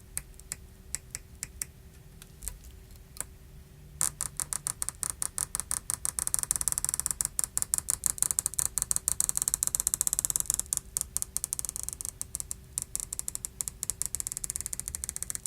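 Battery adhesive pull-tab strip crackling as it is stretched and peeled out from under an iPhone 6 Plus battery: scattered ticks at first, then a dense, rapid crackle from about four seconds in.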